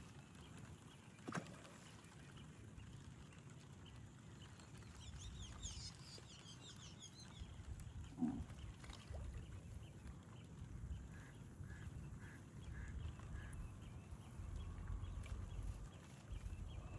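Quiet riverside ambience with low wind rumble on the microphone. A cluster of high chirping bird calls comes a few seconds in, and a run of five short, evenly spaced calls near the middle. A sharp knock sounds early on and another about halfway through.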